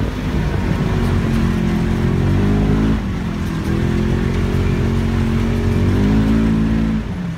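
ATV engine revving hard. Its pitch climbs, falls back about three seconds in, then climbs again and drops near the end.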